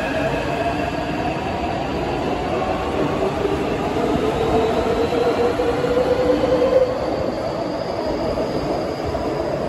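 Taipei Metro train pulling out of an underground station, wheels running on the rails with a motor whine that rises steadily in pitch as it gathers speed.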